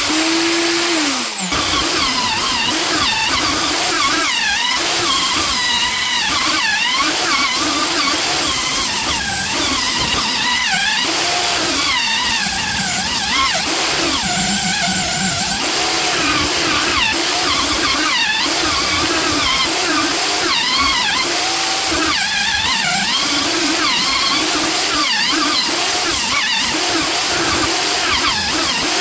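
Electric power tool working wood at high speed, its pitch wavering and sagging as it bites under load. It slows and cuts out for a moment about a second and a half in, then runs on.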